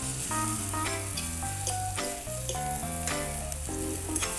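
Sliced artichokes sizzling in an aluminium pan as a spoon stirs them, with background music and its bass line playing throughout.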